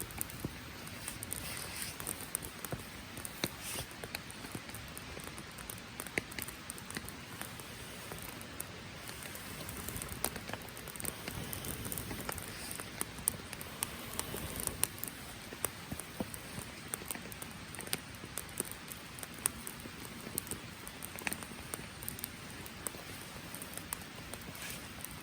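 Steady rain pattering, with many sharp ticks and crackles scattered through it.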